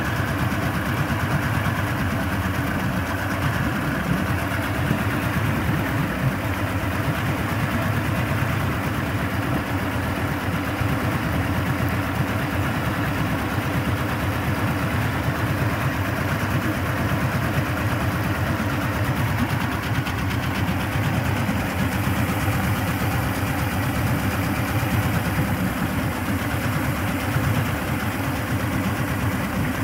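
2001 Yamaha OX66 225 HP V6 two-stroke outboard running steadily at idle, its lower unit sitting in a tub of fresh water during a test run of the cooling system.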